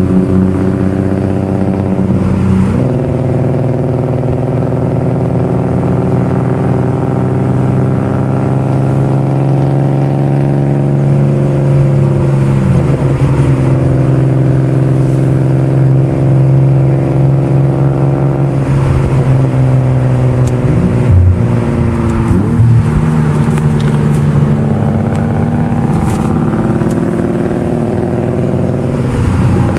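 Infiniti G37S convertible's 3.7-litre V6 engine heard from the passenger seat, pulling through the bends. Its pitch drops and climbs again several times.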